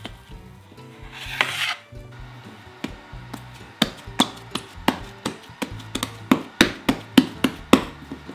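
Hands patting and pressing a ball of yeast donut dough flat on a countertop: a brief rubbing sound about a second in, then a run of sharp slaps, roughly two a second, getting louder near the end. Soft background music plays underneath.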